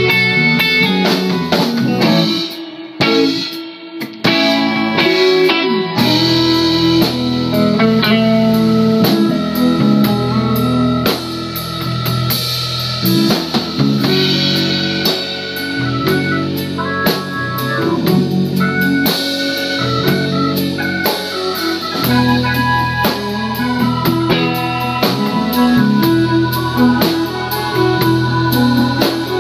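A live rock band plays an instrumental passage on drum kit, electric guitar, bass, keyboard and violin. The drums and low end drop out briefly about three seconds in, and the full band comes back in at about six seconds.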